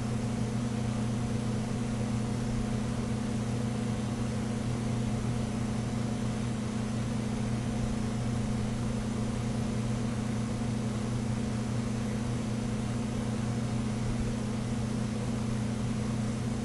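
Steady electrical mains hum, a low buzz with a constant hiss over it, not changing at all.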